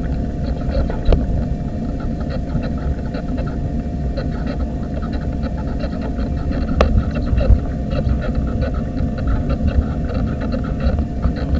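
Wheelchair rolling along a tarmac path, picked up by a camera mounted on the chair: a constant low rumble with a steady whine and a fast, even rattle of small ticks. Two sharp clicks stand out, about a second in and a little past the middle.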